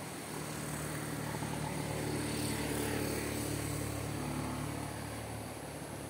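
An engine drone passing by, swelling to its loudest about three seconds in and then fading, over a steady hiss of surf and wind.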